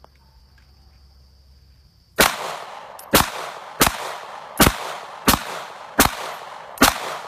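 Seven shots from a 9mm Honor Defense pistol, starting about two seconds in and coming at an even pace of roughly one every 0.7 seconds. Each is a sharp crack with a short echo trailing after it.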